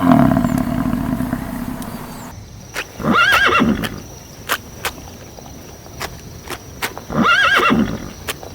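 A horse neighing twice, each a wavering whinny of under a second, about four seconds apart, with scattered single hoof clops between them. Before this, a low drawn-out animal call fades out in the first two seconds and then cuts off.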